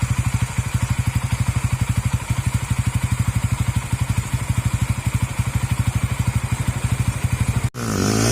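Honda Supra GTR 150 motorcycle engine idling through an aftermarket MVR1 racing exhaust, a steady, even run of low exhaust pulses with a full sound. Near the end it breaks off abruptly and gives way to a sound whose pitch rises and falls.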